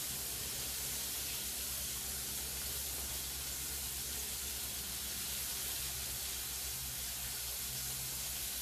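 Shrimp frying in hot oil in a small pot: a steady sizzle and hiss, with a low steady hum underneath.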